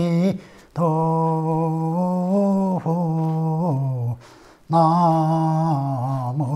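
A single voice chanting slowly in long, held notes. The voice breaks off for breath twice: about half a second in and about four seconds in.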